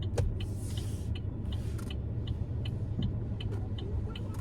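Car cabin sound: the car's low, steady engine and road rumble, with a light, even ticking of the turn-signal indicator about three times a second.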